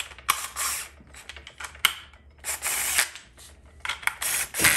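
Cordless power driver running down the bolts of a TH400 low-reverse servo cover, in several short runs of a fraction of a second each.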